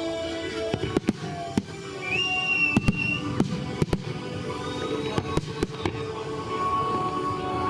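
Fireworks display: shells bursting in irregular sharp bangs, about a dozen, over music.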